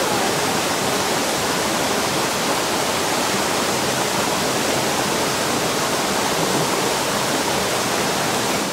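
Small waterfall pouring steadily into a rock pool: a constant, even rushing hiss.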